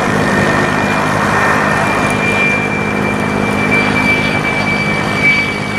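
Aircraft engine running steadily, a loud rushing noise with a low hum and a high steady whine over it.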